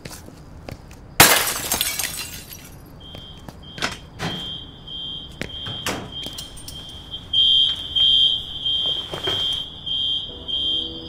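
A pane of glass shatters about a second in, ringing out for a second or so. Then an alarm starts beeping in a high tone about twice a second, with a few sharp knocks in between. Piano notes begin near the end.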